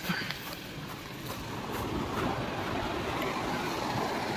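Steady noise of sea waves breaking on the beach, with heavy rain falling.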